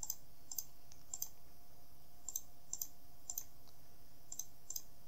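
Computer mouse clicking: about eight sharp clicks, several in close pairs, as mesh faces are selected one by one.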